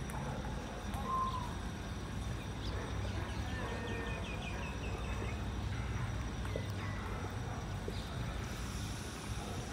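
Outdoor park ambience: a steady low rumble with small birds chirping faintly now and then, including a quick run of short chirps partway through.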